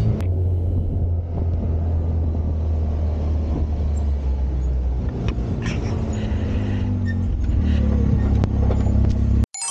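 Side-by-side off-road buggy's engine running as it drives, a steady low drone whose pitch shifts a little; it cuts off suddenly near the end.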